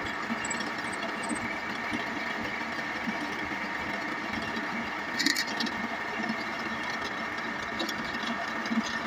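Bench drill press running steadily, its bit boring into a wooden handle. A brief scratchy noise about five seconds in.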